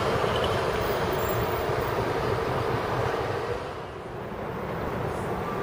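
Steady low outdoor rumble of background noise. It eases off about three and a half seconds in, then picks up again.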